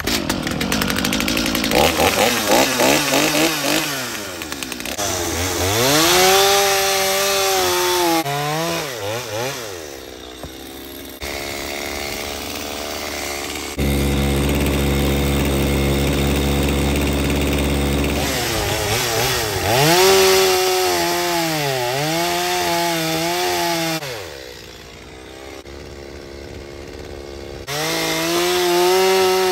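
Stihl two-stroke chainsaw running and cutting through logs, its engine pitch rising and falling again and again as it revs and bogs down in the wood. It is heard in several short edited clips, with a steadier low-pitched stretch midway.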